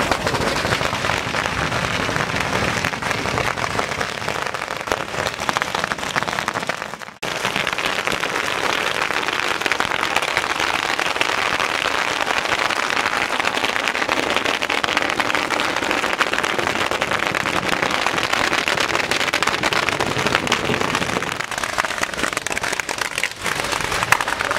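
Strings of firecrackers going off in a dense, continuous crackle of rapid pops, broken by a brief gap about seven seconds in.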